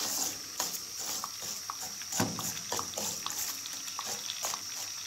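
Raw long-grain rice sizzling in butter and oil in a frying pan while a wooden spoon stirs it, with irregular scrapes and clicks of spoon and grains against the pan: the rice is being toasted before any liquid goes in.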